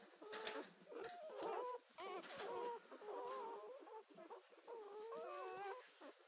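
Newborn greyhound puppies squeaking and whimpering, several thin, wavering cries overlapping almost without a break.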